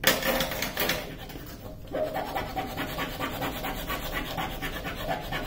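A smoothing tool rubbed quickly back and forth over the protective paper of a diamond painting canvas, a rapid scratchy rubbing, pressing out a pucker in the canvas adhesive. It opens with a louder rustle of paper in the first second.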